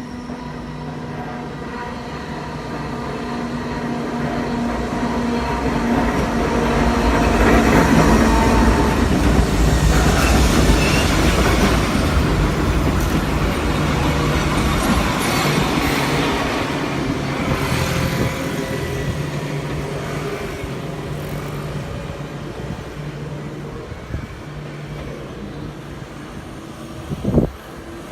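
Enoden electric train passing slowly along street-running track, with a steady motor hum, growing louder to a peak about eight to eleven seconds in and then slowly fading. A short sharp knock sounds near the end.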